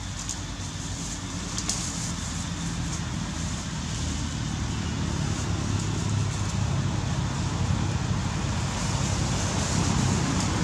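A motor engine running with a steady low rumble that slowly grows louder.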